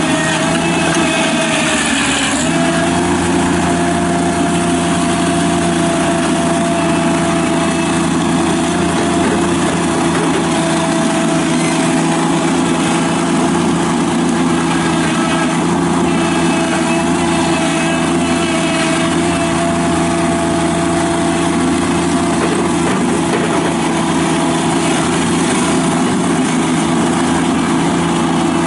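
Toro Dingo TX525 mini track loader's Kubota diesel engine running steadily. Its pitch dips briefly about two seconds in, then holds even.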